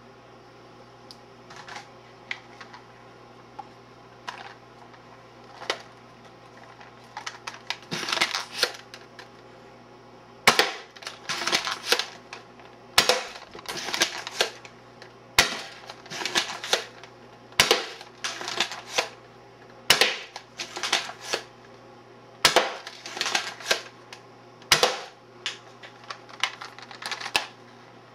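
Nerf Ertl pump-action blaster handled, then cycled repeatedly: light plastic clicks at first, then from about ten seconds in a sharp snap roughly every two and a half seconds, each followed by a clatter of plastic clicks from the pump stroke.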